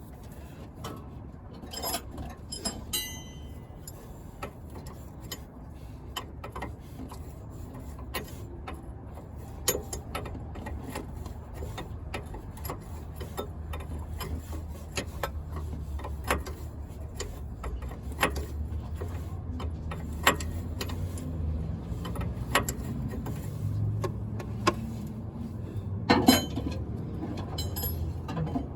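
Scattered clicks, taps and metal clinks of hand tools and fittings as the power steering return hose is worked loose from the engine bay, with a short metallic ring about three seconds in. A low rumble runs underneath and grows louder in the second half.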